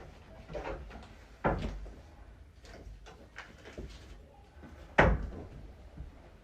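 Two sharp knocks, the second and louder about five seconds in, with rustling and scraping between them: the metal box spring frame being handled and bumped while its fabric cover is fitted.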